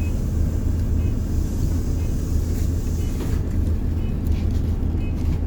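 Diesel bus engine running, heard from inside the bus as a steady low drone, with faint short ticks about once a second.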